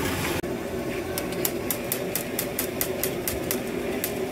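Metal spatula striking a flat iron griddle in quick, even taps, about five a second, as food is chopped and stirred, over a steady low hum. The tapping starts about half a second in.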